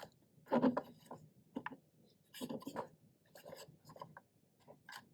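3D-printed plastic parts being handled and fitted together: irregular scraping, rubbing and small clicks, with two louder scrapes about half a second in and around two and a half seconds in.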